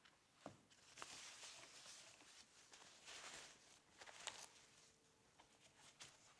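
Faint rustling from hands handling a new gaming keyboard and its packaging, with a few light clicks or knocks, the sharpest just past four seconds in.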